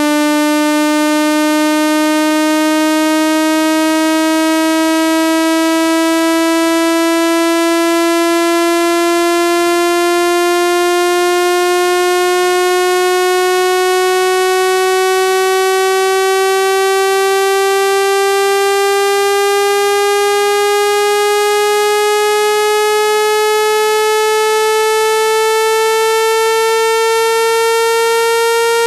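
Synthesized speaker-cleaning tone: a steady, loud, buzzy electronic tone full of overtones, gliding slowly upward in pitch. It is a frequency sweep played to vibrate water and dust out of a phone speaker.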